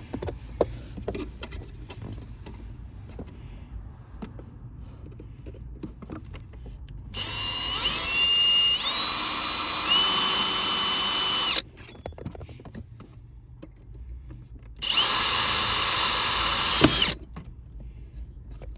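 Electric drill boring a rivet hole to mount a pedal, run twice: a longer run whose whine steps up in pitch as the speed rises, then after a pause a shorter steady run. Light clicks and handling noises come before the first run.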